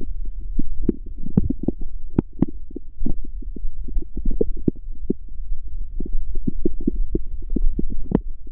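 Human stomach growling: a continuous run of short gurgles and bubbly pops over a steady low rumble, the sound of gas and fluid moving through the gut.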